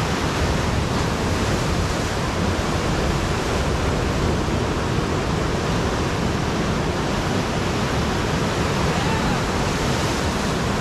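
Rough ocean surf breaking and foaming against a rock jetty: a steady, unbroken roar of rushing water.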